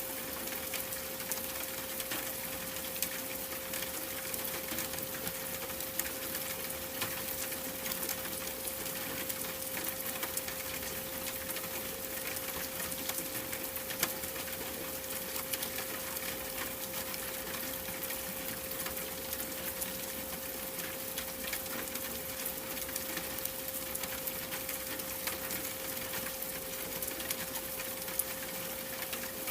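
A steady pure 528 Hz tone held unbroken over a continuous hiss of rain, full of fine crackling drop ticks.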